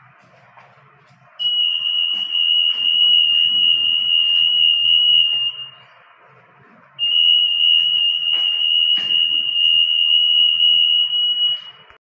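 SET AM4400 58 kHz acousto-magnetic EAS anti-theft pedestal alarm sounding a steady high-pitched tone twice, each time for about four seconds: the gate detecting the EAS tag carried between its antennas.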